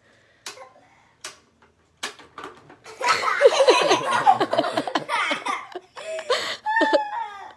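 Two children laughing loudly and shrieking with delight, breaking out about three seconds in. It comes after a few light clicks, about one a second, as the Pie Face game's crank is turned.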